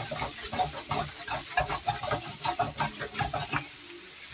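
Sliced Polish sausage sizzling in a wok over a gas burner, with irregular knocks and scrapes as the wok is shaken on the stove grate. The knocking stops about three and a half seconds in, leaving the sizzle.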